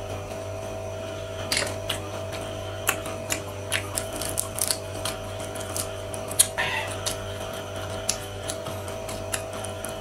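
Close-miked eating sounds of floured, fried shrimp: chewing and lip smacks with many sharp, crisp clicks as the shrimp is bitten and pulled apart by hand, over a faint steady hum.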